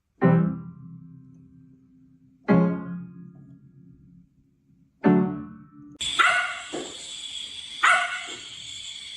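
Three slow piano notes, each struck and left to ring out, about two and a half seconds apart; then, about six seconds in, a louder, fuller passage begins with a dog barking.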